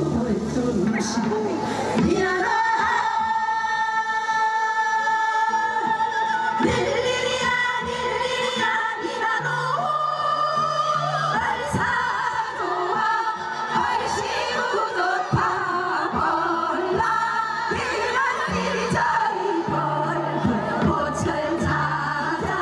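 A group of women singing a Gyeonggi minyo (Korean folk song) through microphones over instrumental accompaniment, with long held notes.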